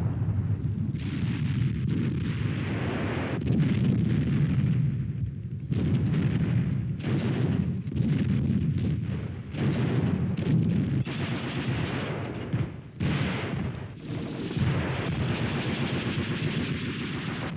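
Battle sounds of gunfire and artillery fire: a dense, continuous run of shots and blasts with machine-gun bursts mixed in.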